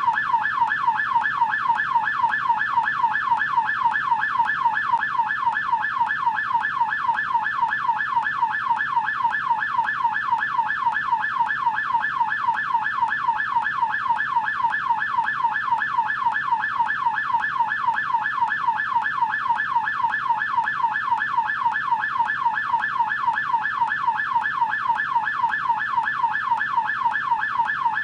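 US police car siren in yelp mode: a fast, steady up-and-down wail, repeating several times a second without a break.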